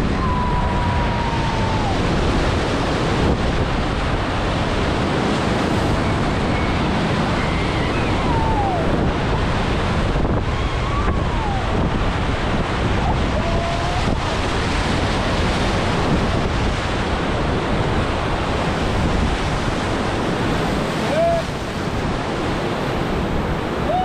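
Big-river whitewater rushing and crashing around a rowed raft as it runs a rapid at high flow (about 30,000 cfs), steady and loud throughout, with wind buffeting the microphone.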